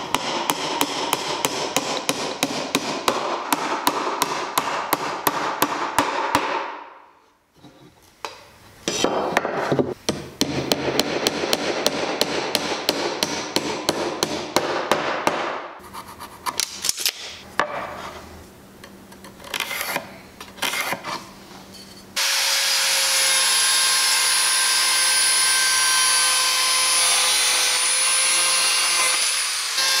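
Rapid hammering of nails into a wooden birdhouse roof, a series of sharp knocks, broken by a brief pause. After a quieter stretch of light handling, an angle grinder fitted with a wood-cutting blade starts about two-thirds of the way in and runs steadily and loudly with a high whine, cutting into the wooden roof.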